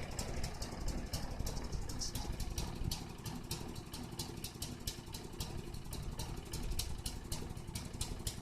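Small lawn mower engine running, a low steady rumble with irregular light ticking over it.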